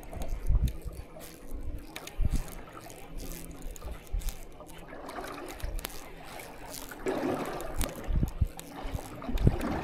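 Choppy, wind-driven water lapping and slapping against a fishing boat's hull, with wind buffeting the microphone in low thumps and the faint steady hum of the electric trolling motor underneath. A louder splash of water comes about seven seconds in.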